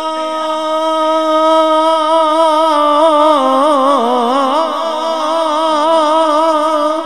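A man singing a naat into a microphone, drawing out one long unbroken note between the lines of verse. The pitch holds steady at first, then wavers, with a dip about four seconds in.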